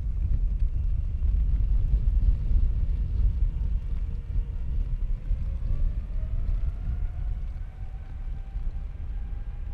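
Jet airliner at a distance: a steady low rumble, with a faint engine whine that slowly rises in pitch over the second half.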